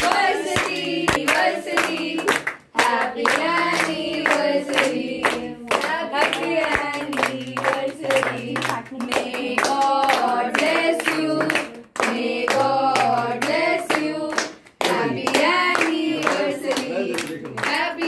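A small group singing together, clapping along in time.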